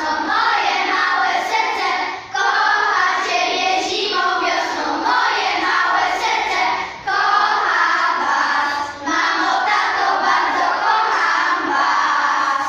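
A class of children singing a song together as a group, with short breaks between phrases about two, seven and nine seconds in.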